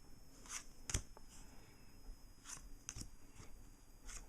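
Foil trading cards being handled: a few soft slides and light taps of card against card, about one a second, the sharpest about a second in.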